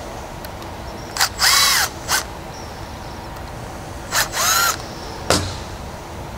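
Cordless drill/driver run in two short bursts to loosen the fasteners on a hose ball stop, its motor whine rising and falling in pitch each time. Near the end comes a single sharp knock.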